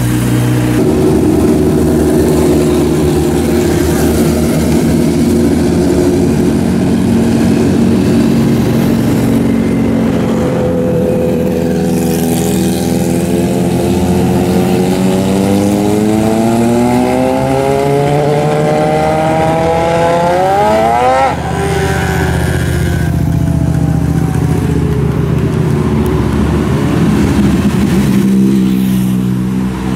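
Motorcycle engines running in street traffic. About a third of the way in, one engine's pitch climbs steadily for roughly ten seconds as it revs up, then drops abruptly, and the steady running of the others carries on.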